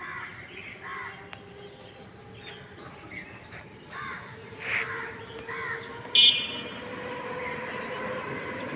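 Crows cawing several times over a steady hum of outdoor background noise, with one short, sharp high-pitched sound about six seconds in.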